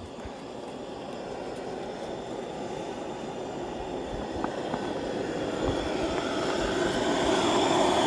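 Gas camp stove burner running with a steady rushing hiss, growing gradually louder toward the end.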